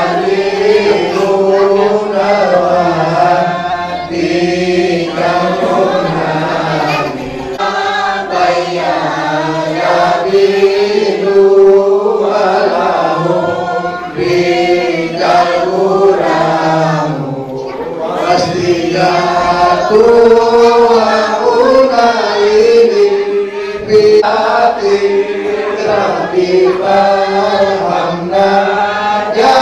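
A group of men chanting together in unison, a slow melodic chant with long held notes.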